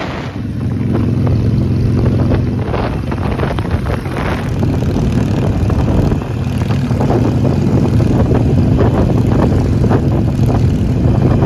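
Motorcycle engine running steadily at road speed, heard from on the bike as a low, even hum. The hum drops back for a few seconds in the middle, then picks up again.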